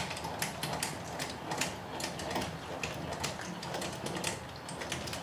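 Manual A-frame trailer tongue jack being cranked down, its gears clicking in an uneven run of several clicks a second as it lowers the trailer tongue onto the hitch ball.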